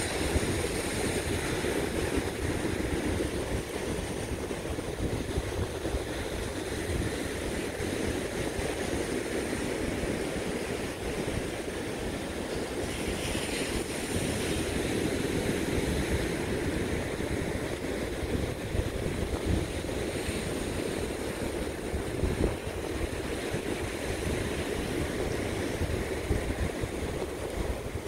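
Ocean surf washing on the beach, with wind buffeting the microphone.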